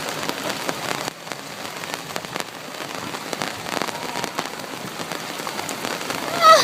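Heavy rain pouring down, a dense steady hiss full of fine drop patter, easing briefly about a second in. A short voiced exclamation cuts in at the very end.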